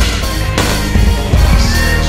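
Bass-boosted remix of a wrestling entrance theme: loud rock music over a heavy, deep bass beat.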